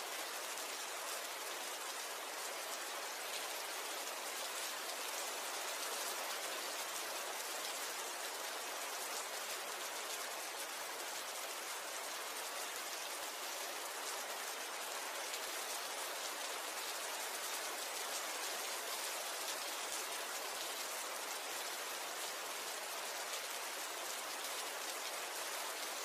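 Steady rain falling, an even hiss of many drops pattering on a surface, with no change in intensity.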